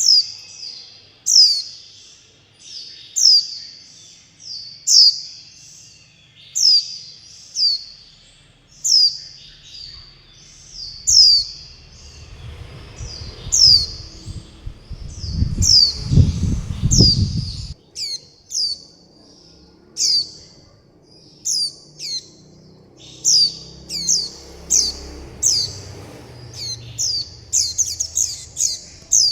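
Young white-eye chicks giving begging calls: high, thin, downward-slurred chirps about once a second, coming faster and overlapping near the end. A low rumble swells in the middle and cuts off suddenly.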